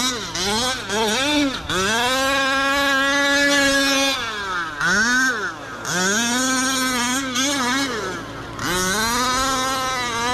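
Losi 5T's 45cc OBR two-stroke gas engine revving as the truck is driven hard: the pitch climbs and holds high for a couple of seconds, drops away, then climbs again, several times over.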